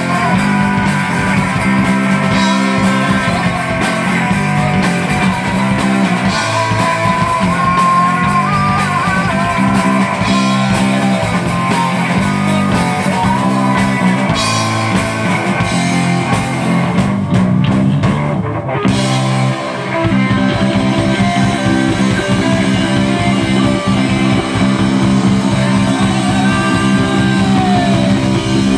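Live rock band playing loud: electric guitar, bass guitar and drum kit, with a brief break about two-thirds through before the band comes back in.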